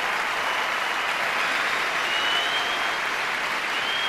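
A large arena crowd applauding steadily.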